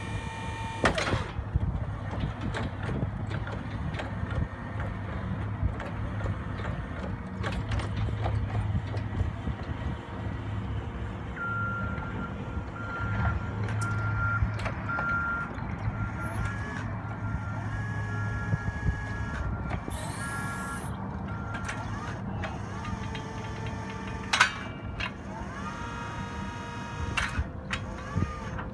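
Yale ERP040 electric forklift working: a low steady electric-motor hum, then, from a little over a third of the way in for about ten seconds, the even repeated beeping of its backup alarm as it moves. Near the end come brief rising whines from its electric drive, with a sharp click or two.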